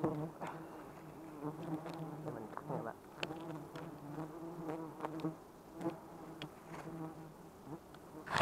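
A swarm of wild honeybees buzzing close around their comb, a steady wavering hum, with scattered short clicks and rustles as the comb is handled.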